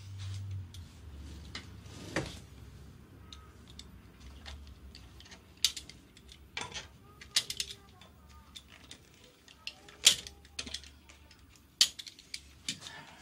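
Clicks, taps and small metal clinks of a hand tool working on the fittings of a Makita slide compound miter saw while its rubber chip guard is unfastened and taken off. The clicks come irregularly, a few sharper ones standing out, the loudest about ten seconds in.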